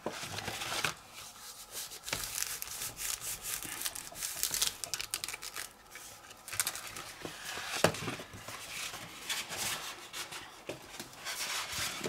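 Heavy paper rustling and rubbing as hands fold and press together the glued pages of a handmade concertina book, with a sharper tap about two-thirds of the way through.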